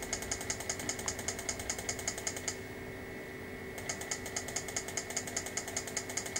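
Rapid, even ticking, about eight ticks a second, from a Mazda RX-8 instrument cluster as CAN messages drive its rev-counter and speedometer needles. The ticking stops for about a second midway, then starts again, over a faint steady electrical whine.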